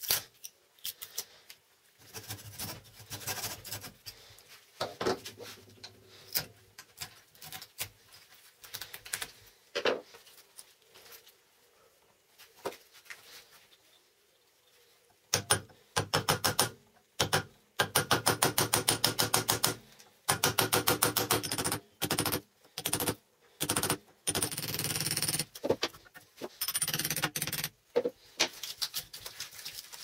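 Prying and scraping at a microwave oven transformer's secondary winding in a steel vise, heard as scattered clicks. About halfway through this gives way to runs of fast, loud metallic hammer blows on a threaded-rod punch, driving the copper secondary winding out of the transformer core.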